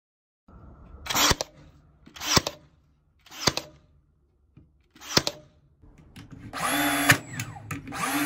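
Battery-powered nailers firing into wood: four short motor whirs, each ending in a sharp shot about a second apart. Then come two longer whirs, from a DeWalt DC608 18V brad nailer's motor spinning up, each ending in a shot.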